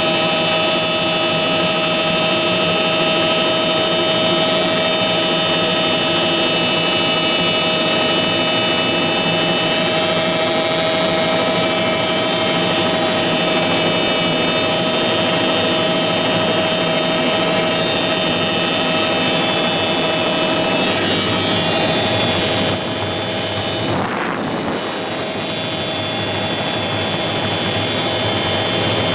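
Helicopter in flight heard from inside the cabin: steady engine whine with several held tones over the rushing drone of the rotors, dropping slightly in level about three quarters of the way through.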